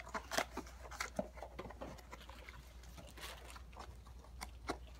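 Hands rummaging in a cardboard box, with plastic packaging crinkling and rustling and scattered light clicks and taps, over a steady low hum.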